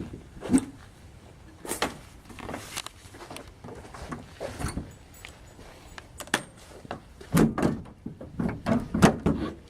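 A series of irregular knocks and clunks, the loudest about half a second in, near two seconds in, and a cluster around seven and a half to nine seconds in.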